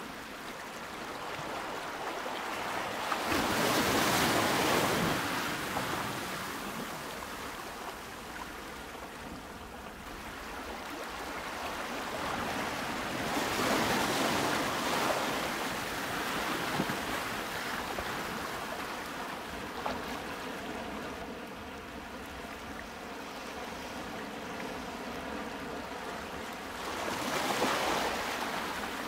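Ocean waves washing in, a steady hiss of surf that swells and fades three times, about every ten to thirteen seconds.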